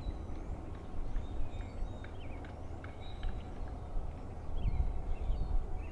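Low, steady rumble of a distant diesel locomotive working a double-stack freight train, with small birds chirping repeatedly over it.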